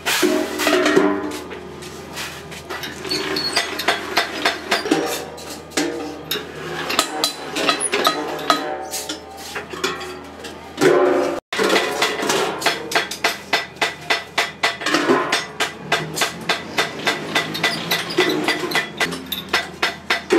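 Sharp metallic taps and clanks of a thin stainless steel sheet-metal cylinder being handled and worked on a hand-cranked roller machine. In the second half they fall into a quick, fairly even run of about two to three a second.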